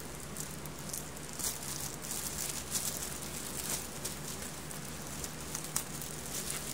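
Clear plastic packaging bag crinkling and rustling as hands pull it open around a backpack, a continuous run of irregular crackles.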